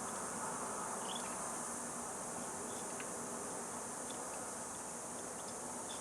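Steady high-pitched hiss with a faint low hum underneath and a couple of light ticks.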